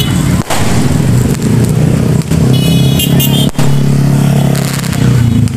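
Cars and motorbikes of a festival convoy running close past on the street, a steady engine hum, with a few short high-pitched beeps about three seconds in.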